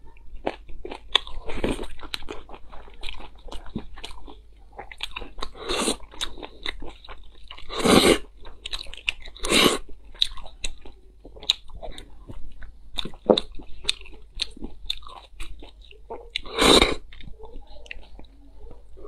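Close-miked chewing and wet mouth sounds of a person eating seasoned marrow bones and meat: many small sharp clicks with several louder bursts, the loudest about eight seconds in and again near seventeen seconds.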